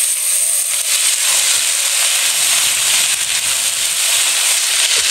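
Rapeseed greens, bitter melon and carrot sizzling steadily in hot oil in a wok, just after being added to the pan.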